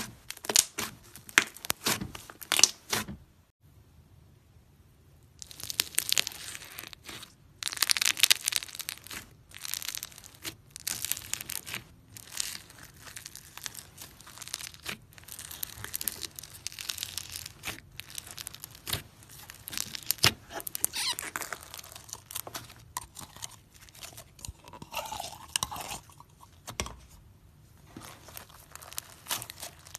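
Hands squishing, poking and kneading slime, making quick sticky crackles and pops, with a brief lull about four seconds in. Midway the slime is floam, orange slime packed with foam beads, crunching as it is kneaded in a bowl.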